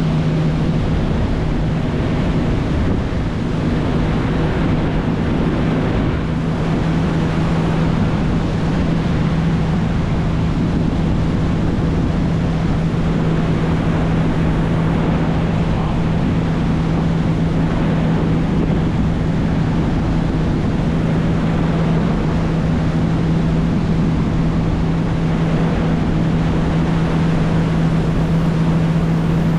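Outboard motor of a Pathfinder 25 bay boat running steadily at cruising speed, a constant even drone, under a steady rush of wind and water.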